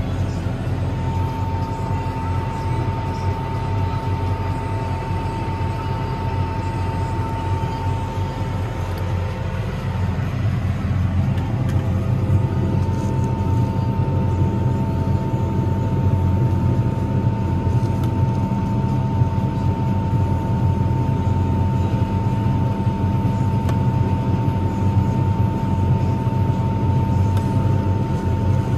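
Combine harvester running steadily: a deep engine hum with a high, steady whine. The whine drops out for a few seconds around the middle, then returns as the sound grows a little louder.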